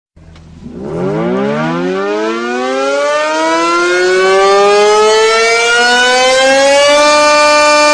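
Fast-breaking (buka puasa) siren signalling the end of the day's Ramadan fast. It winds up from a low pitch, rising steadily for about seven seconds, then holds one steady tone.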